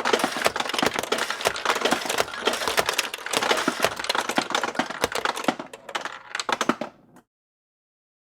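Pachinko machine in play: small steel balls clattering rapidly through the pins, a dense rattle of clicks. The clatter thins out over its last couple of seconds and stops abruptly about seven seconds in.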